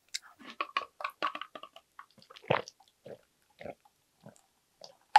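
Close-miked chewing of a mouthful of fried rice: a quick run of wet smacks and clicks for the first few seconds, then a few separate soft gulps as water is drunk.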